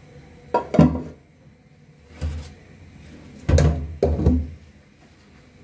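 Perforated stainless-steel colander full of parboiled rice being shaken and knocked to drain off the water. It gives about six dull thuds in three groups, two close together, one alone, then three in quick succession.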